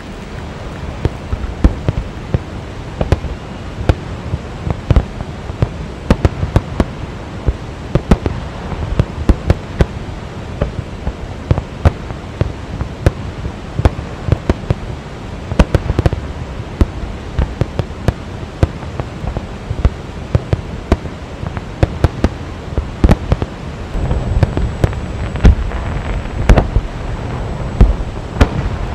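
Fireworks display: a dense, irregular string of sharp bangs and crackles over a steady low rush of the waterfall, the low rush growing louder near the end.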